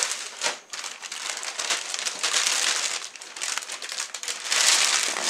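Plastic packaging crinkling and rustling as it is handled and pulled off, a dense run of crackles that swells near the end.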